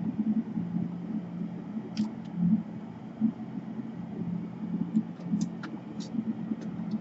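A few light clicks and taps of laptop parts being handled and fitted during reassembly, about two seconds in and again several times near the end, over a steady low hum.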